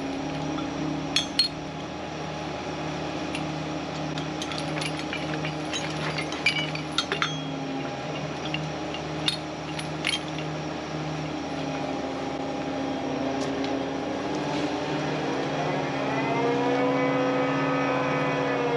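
A mobile crane's diesel engine idles with a steady throb, while metal lifting chains clink in scattered knocks through the first half. About three-quarters of the way in the engine revs up, holds, and begins to ease off again near the end.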